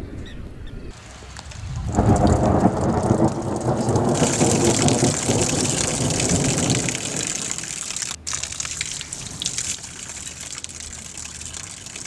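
A rush of falling water, as from a makeshift bucket shower: a low rumble builds about two seconds in, then gives way to a steady hiss of water spattering, which eases off near the end.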